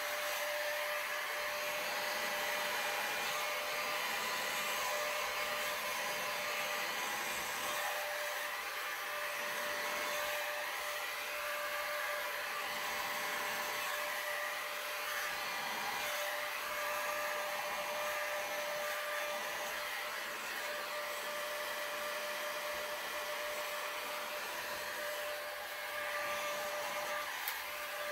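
Electric heat gun running steadily, a blower hiss with a steady whine, played over wet epoxy resin to pop surface bubbles.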